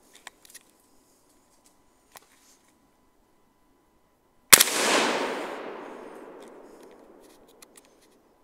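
A single rifle shot about four and a half seconds in, its report echoing and fading away over about three seconds. A few faint clicks come before it.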